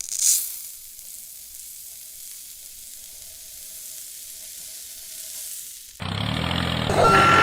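A steady, fairly quiet hiss lasting about six seconds. It begins with a brief louder rush and stops abruptly.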